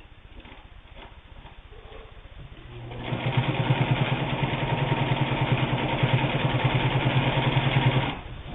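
Pfaff 130 sewing machine stitching through eight layers of denim. After a few faint clicks it starts running about three seconds in with a fast, even run of needle strokes, and stops abruptly near the end.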